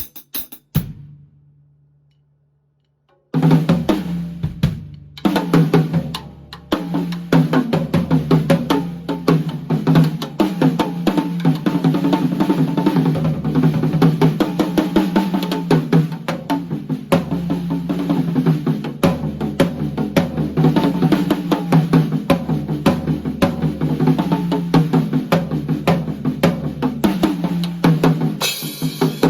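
Drum kit played: one hit rings out and dies away, then after a pause of about two seconds a busy groove of snare and bass drum starts and keeps going, with a short break soon after it begins. The hi-hat sounds muffled.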